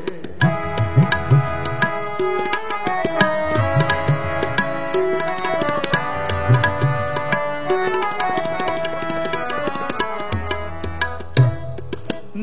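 Instrumental interlude of Sikh kirtan music: tabla drumming under a melody of held notes, with no singing.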